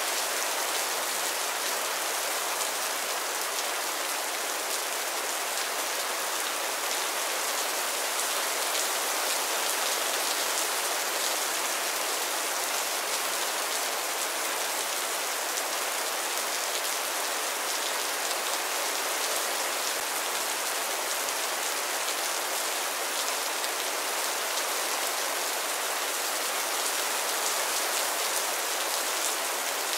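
Heavy rain falling steadily, a dense, even hiss of countless drops.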